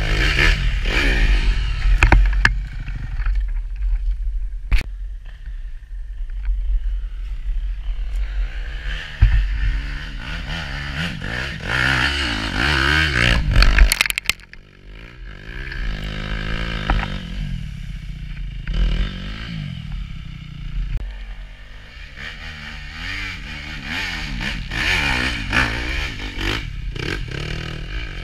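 250 cc enduro dirt bikes revving hard as they climb a steep dirt trail, the engine pitch rising and falling again and again as the riders work the throttle. Several sharp knocks and scrapes on the helmet camera are mixed in, and there is a sudden drop in loudness about halfway through.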